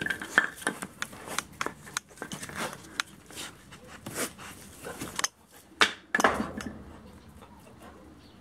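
Irregular clicks, knocks and scrapes as a German wirehaired pointer puppy paws and tugs at a fur-wrapped wooden training dummy on concrete, its claws and the dummy striking the floor. The loudest knocks come about six seconds in, then the sound thins out.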